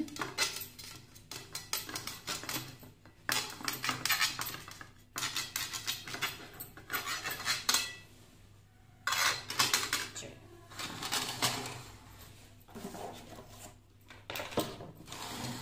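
A serrated knife sawing back and forth horizontally through a baked sponge cake to split it into two layers. The cutting comes in several bursts of quick strokes with short pauses between them.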